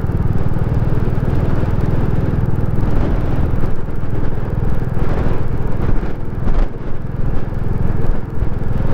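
Royal Enfield Classic 350's single-cylinder engine running steadily as the bike cruises along, with wind noise over the helmet microphone.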